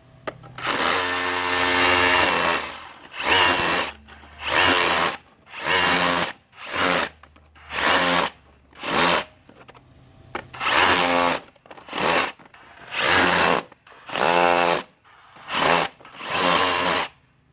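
Ridgid R86712B brushless SDS rotary hammer in chisel mode, chipping out mortar from a stone wall crack in about a dozen short bursts, the first about two seconds long and the rest under a second each, with the motor whining through each burst.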